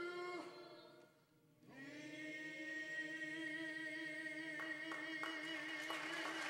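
Unaccompanied singing with no piano: a held note with vibrato fades away about a second in, then after a short breath a single long steady note is held to the end.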